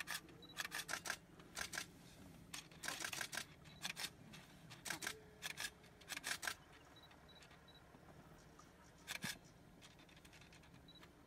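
Camera shutters firing in rapid bursts, several short series of sharp clicks. Beneath them, a few faint, soft drawn-out calls from lion cubs.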